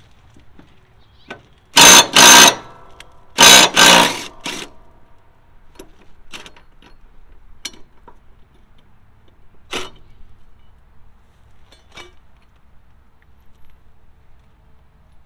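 DeWalt 20-volt cordless impact driver hammering in four short bursts, two pairs about a second and a half apart, breaking a mower blade bolt loose; then scattered light clicks.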